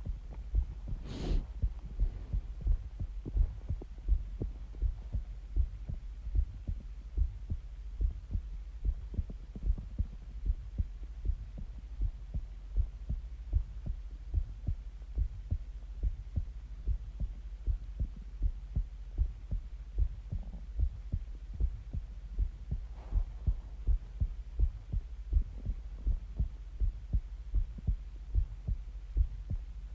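Human heartbeat recorded close up: steady, regular low thumps with a constant hum beneath. A brief hiss cuts across it about a second in.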